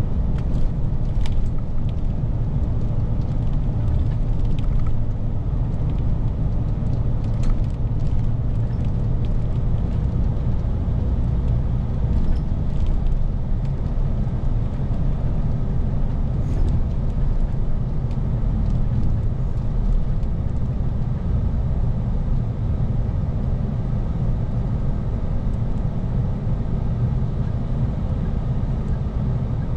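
Airport bus heard from inside the passenger cabin while riding: a steady low rumble of engine and road, with a few faint clicks and rattles in the first half.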